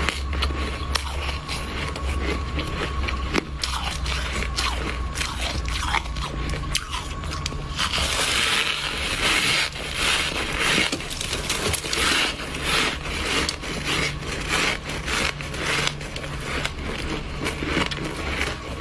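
Shaved ice being bitten and chewed close to the microphone: dense, irregular crunching throughout, louder and denser from about eight seconds in.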